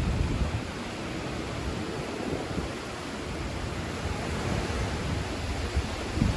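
Steady rushing noise of strong cyclone wind.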